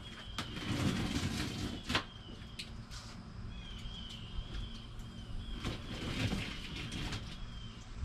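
A large cardboard box being opened by hand: packing tape pulled off with a ripping scrape, and cardboard flaps knocked and rubbed, with several sharp clicks. A bird chirps repeatedly in the background.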